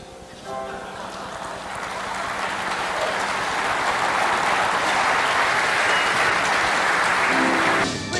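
Audience applauding, swelling steadily louder over several seconds, then cut off abruptly near the end.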